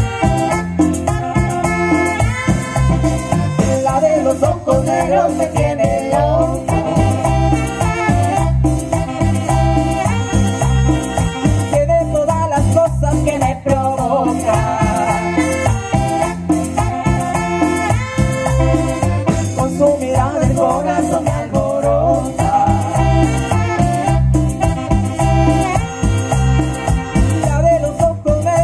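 A Latin tropical dance band playing an instrumental passage: a bouncing, repeating bass line under a melody, with percussion keeping a steady beat.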